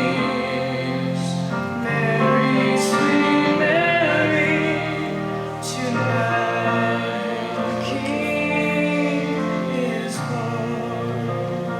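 Singing over instrumental accompaniment: a slow Christmas song with long held, wavering notes and a few sung 's' sounds.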